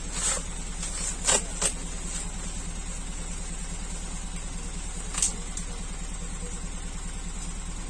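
A vehicle engine idling with a steady low hum. There are four brief sharp noises, three in the first two seconds and one about five seconds in.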